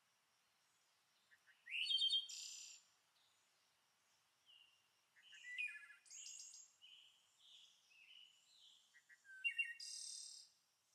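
Small birds chirping and singing in short bursts of high trills and rising whistles, loudest about two seconds in and again near the end, with fainter calls between.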